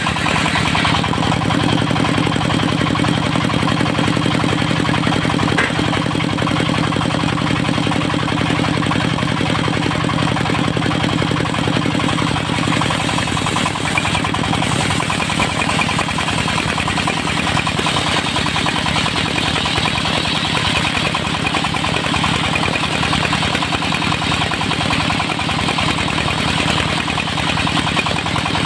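Engine of a portable circular-saw sawmill running steadily at an even pitch and level.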